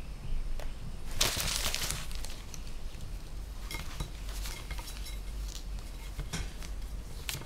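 Kitten wriggling and batting about beside newspapers and leaflets: rustling and crinkling, with one loud dense burst about a second in, then scattered small scratchy rustles and clicks.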